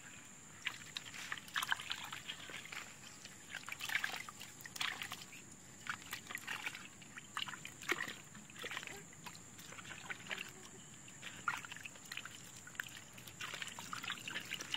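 Hands splashing and sloshing in small buckets of muddy water holding freshly caught fish, in short irregular splashes and trickles.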